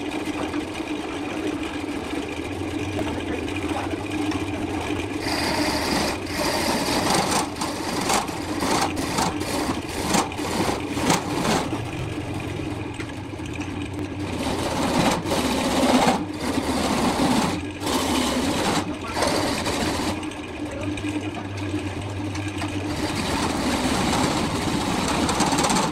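Electric wood lathe running with a steady motor hum while a hand-held turning tool cuts into the spinning wood, making rough scraping noise that swells and eases as the tool is worked.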